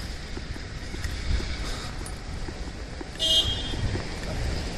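Low, steady rumble of street traffic, with one short high-pitched vehicle horn toot about three seconds in.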